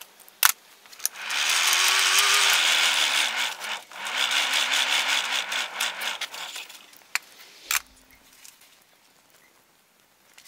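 Forge blower forcing air into a coal fire to bring it up to heat: a loud rush of air over a wavering motor hum, in two long blasts with a brief break between them. A sharp metal click comes just before, and a few clinks and a knock follow.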